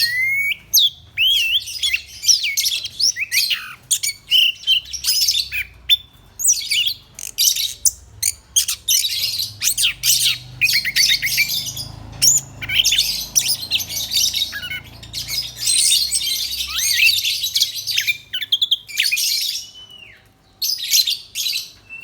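Orange-headed thrush (anis kembang) in full song: a rapid, unbroken run of varied whistled phrases and quick trills, with only short gaps and one brief break near the end.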